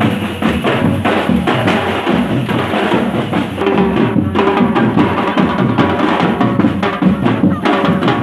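Marching drum corps playing, snare and bass drums beating a steady, busy rhythm.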